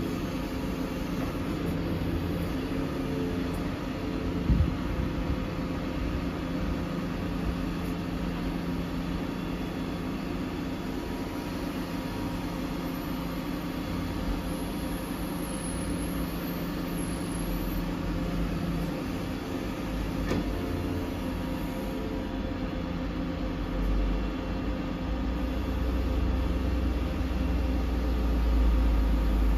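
Volvo FE 320 lorry's diesel engine running steadily to drive the hydraulics of its Hiab loader crane while the crane lifts a load. There is a brief knock about four and a half seconds in, and the low rumble grows louder over the last few seconds.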